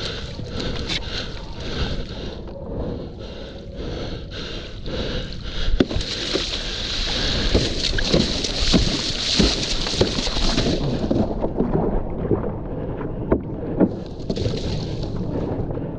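Water sloshing and splashing around a stand-up paddle foil board as it is paddled, with wind on the microphone. A louder hissing rush of water runs for about five seconds in the middle, and several sharp knocks and splashes come from the paddle strokes.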